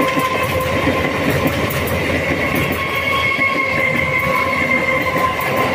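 Electric multiple-unit (EMU) local train running past and across a steel bridge: a steady rumble of wheels on the rails, with a steady high whine over it.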